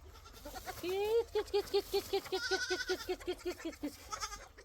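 Goats bleating: a short rising call, then a long wavering bleat broken into rapid even pulses, with a higher-pitched call over it midway.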